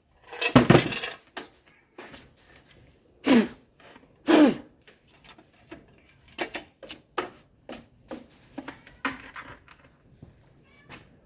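A heavy metal payphone being stood upright and handled: a scraping shuffle, two loud metal clunks, then a string of lighter clicks and rattles.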